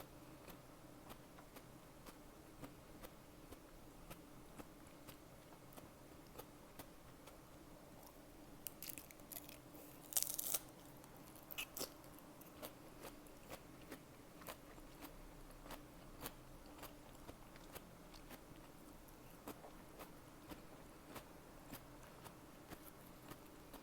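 A person chewing food close to the microphone: soft, wet chewing clicks at about two a second, with a short run of louder, crunchy bites around the middle.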